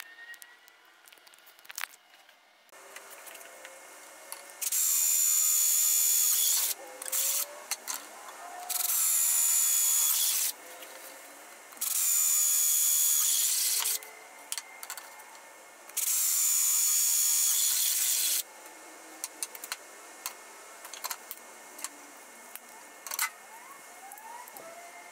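Electric power drill running in four bursts of about two seconds each, with a steady high whine, and small clicks and knocks in between.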